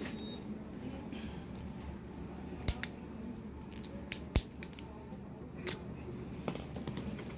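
Plastic rings clicking and tapping against each other as they are handled and pressed together, a handful of sharp clicks with the loudest about four seconds in.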